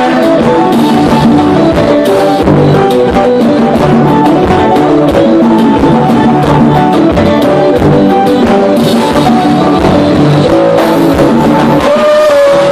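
Live band playing an instrumental stretch, with guitar, drum kit and conga drums, loud and amplified.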